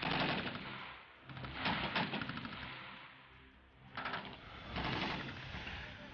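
Rapid small-arms fire from M4 carbines on a live-fire range. It comes in four or five quick strings of shots, each lasting about half a second to a second, with pauses of one to two seconds between them.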